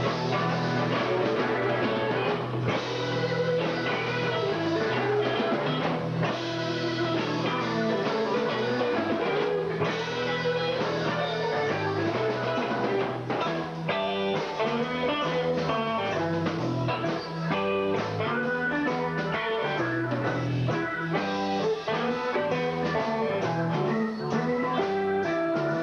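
Rock band playing live: an electric guitar line over bass guitar and drum kit, with no singing.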